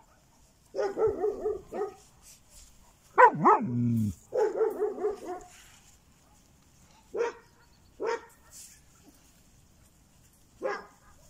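Puppies barking and yapping: a quick run of high yaps about a second in, two sharp yelps around three seconds followed by another run of yaps, then three single short barks spread through the rest.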